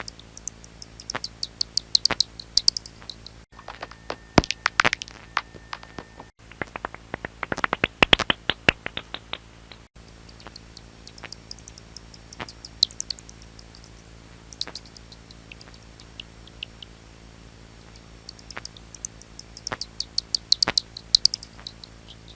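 Rapid high-pitched animal squeaks and chirps in short clusters, with scattered sharp clicks between them.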